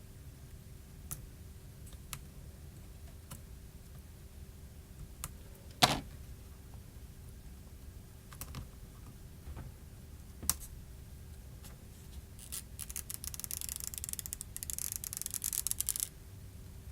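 Small repair tools clicking and tapping on an iPhone 6 Plus's case and parts, a scattering of single clicks with one sharper knock about six seconds in. Near the end comes a few seconds of rapid, fine crackling.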